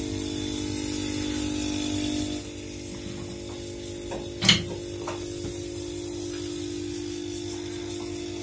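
Steady hum of running machinery, with a hiss that stops a little over two seconds in, and one sharp knock about halfway through as someone works on the engine.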